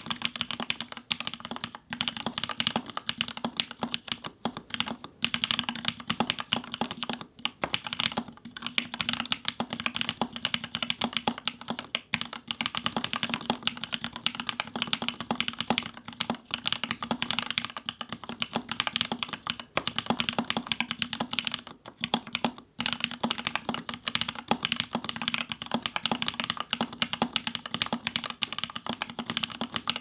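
Continuous fast typing on a Prototypist J-01 custom mechanical keyboard with Gateron Lion linear switches, a carbon fibre plate and aluminium keycaps: a dense stream of keystrokes, broken by a couple of brief pauses.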